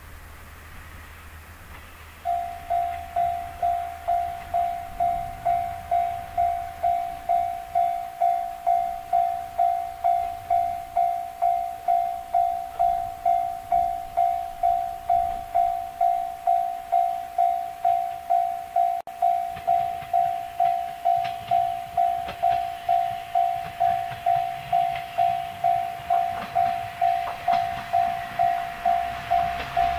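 Japanese level-crossing alarm starting about two seconds in, an electronic bell ringing one tone in a fast, even rhythm. Toward the end the rumble of an approaching diesel railcar rises faintly under it.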